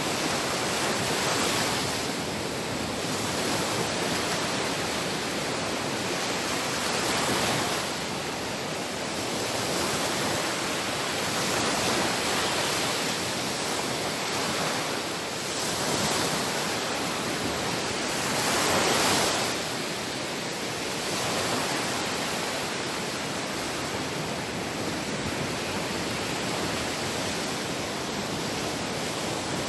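Sea waves breaking and washing on the shore in a steady rush, swelling and easing every few seconds, with the biggest wave about two-thirds of the way through.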